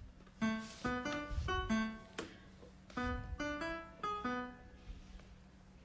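Background keyboard music: a simple melody of short, separate notes in two phrases, thinning out near the end.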